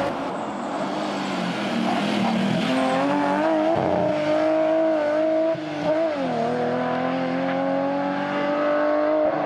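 BMW E36 rally car engine running hard at high revs on a tarmac stage, its note climbing and falling with the throttle. About six seconds in, the pitch dips briefly and climbs again. The sound cuts off suddenly at the end.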